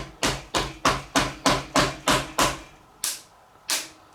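Hammer blows, a quick run of about eight strikes followed by two slower ones, knocking at a glued-on handlebar grip to break it off the bar.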